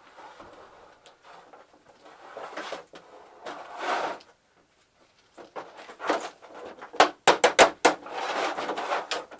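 A partly disassembled flat-screen TV being handled and turned around: its plastic and metal parts knocking, rubbing and scraping, with a quick run of sharp clicks and knocks about seven seconds in.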